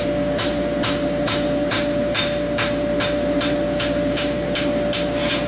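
A 2 lb rounding hammer strikes a horseshoe on an anvil at a steady pace, about two blows a second, as the heel is forged. A steady hum runs underneath.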